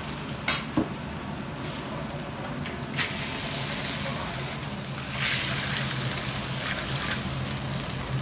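Shredded napa cabbage and starch noodles frying in a large black wok. A couple of metal clinks from the steel bowl and ladle come in the first second, then a loud sizzle starts abruptly about three seconds in and keeps going as the food is stirred.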